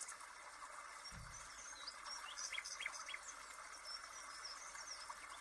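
Faint outdoor ambience with small birds chirping in short, quick calls, mostly in the middle of the stretch, and a soft low bump about a second in.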